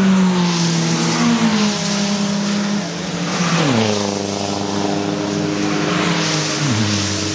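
Race car engines passing on a wet track. The engine note falls steeply in pitch twice as cars go by, over a steady hiss of tyres on wet tarmac.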